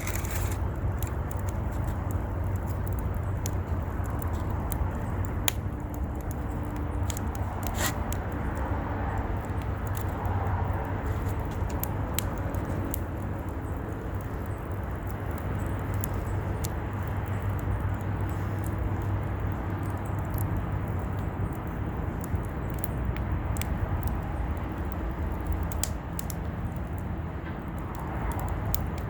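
Wood campfire crackling, with scattered sharp pops and snaps over a steady low rumble.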